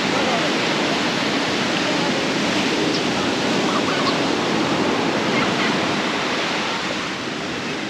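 Sea surf breaking and washing up a beach: a steady rush of water that eases a little near the end.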